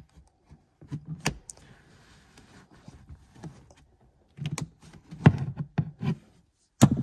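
A small screwdriver prying at the barbed plastic retaining strip behind the back panel of a Mercedes-Benz A-Class (W177) front seat. Irregular sharp plastic clicks and knocks as the strip is levered free: one about a second in, then a cluster in the second half, the loudest about five seconds in.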